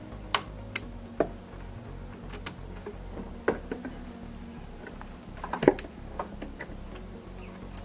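Pliers working a hose clamp and hose fitting on an engine intake: a scattered series of sharp metallic clicks and snaps, the loudest a little past halfway.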